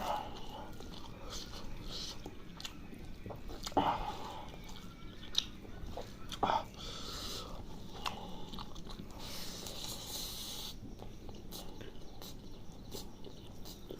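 Close-miked chewing and wet mouth sounds of a person eating chicken liver curry with rice, with many small clicks and a few sharper knocks about 4, 5.5 and 6.5 seconds in.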